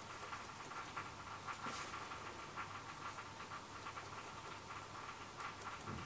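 Faint scratching and rubbing of a pen tip worked against a small piece of cork: a run of soft, irregular scrapes and ticks over a low steady hum.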